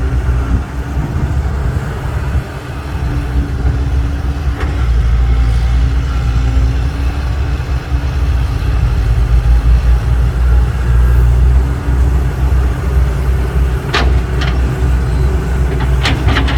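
Heavy diesel engine running steadily with a deep low rumble, a few sharp knocks or clanks near the end.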